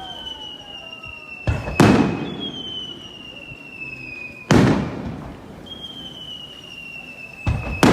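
Aerial fireworks shells bursting with sharp booms: a close pair about a second and a half in, one more about halfway, and another close pair near the end. Between the bursts a high whistle slowly falls in pitch.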